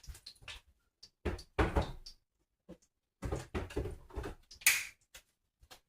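Kitchen cupboard door opening and closing while things are put away, a run of knocks and thuds with the loudest near the end.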